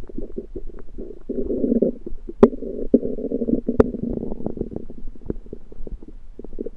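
Stomach and bowels gurgling and rumbling, a bubbly churning full of small pops, loudest in the middle, with two sharp clicks at about two and a half and four seconds in. The owner thinks the cause is food he undercooked.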